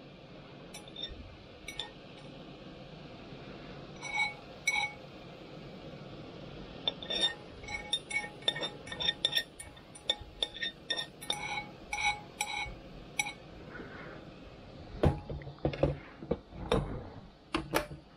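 Metal chopsticks scraping and tapping inside a rice cooker's inner pot to scoop out cooked rice: a run of sharp, ringing clinks, thickest in the middle. Near the end come a few heavier, deeper knocks.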